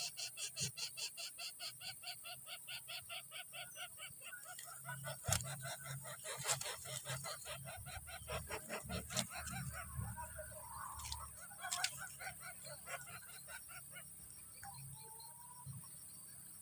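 Coucal nestlings begging: a rapid, even series of harsh calls, about four a second, that fades away over the first half. After that come a few scattered clicks and short calls.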